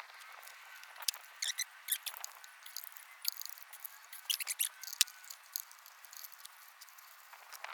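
Spark plug socket and extension turning plugs into the cylinder head by hand: scattered light metal clicks and short clusters of high squeaks, twice in quick runs.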